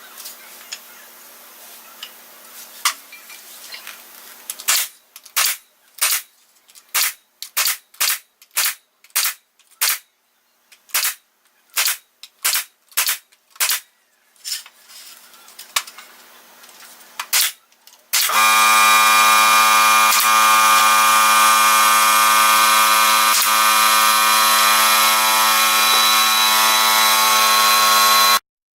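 Hammer driving nails into a wooden roof truss laid on a cement floor: about twenty sharp strikes in quick runs. Then a loud, steady, horn-like buzzing tone for about ten seconds that cuts off abruptly.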